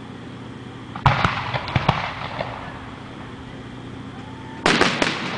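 Aerial fireworks bursting: a sharp bang about a second in followed by a run of smaller pops and crackles, then another bang with crackling near the end.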